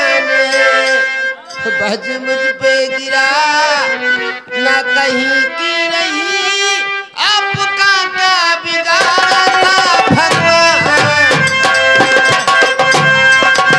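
Nautanki stage song: a voice holding long, bending sung notes over harmonium, with hand drums coming in fast and loud about nine seconds in.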